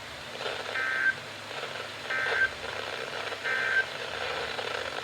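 Emergency Alert System SAME end-of-message code: three short warbling data bursts, each about a third of a second long and a little over a second apart, over faint radio hiss. They mark the close of the broadcast warning.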